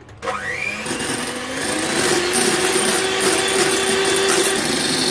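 Electric hand mixer with twin wire beaters whipping chilled cream in a glass bowl. The motor starts with a whine that rises in pitch and gets louder over the first two seconds, then runs at a steady high speed. The cream is partway whipped, just beginning to turn fluffy.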